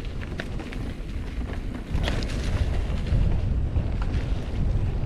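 Wind buffeting the camera microphone while a mountain bike is ridden on a dirt trail, with scattered clicks and rattles from the bike and ground. It gets louder about two seconds in.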